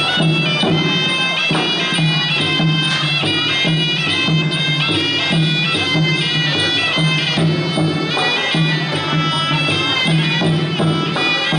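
Traditional Khmer boxing music: a sralai reed pipe playing a continuous, shifting melody over a steady drum beat.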